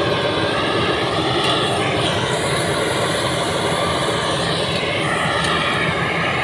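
Deutz-Fahr M1202 E combine harvester running steadily as it moves through the grain field.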